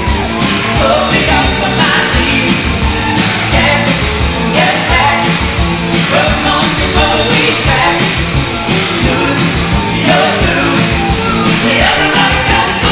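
Upbeat rock-and-roll style pop song with a singing voice over a steady drum beat, played loud.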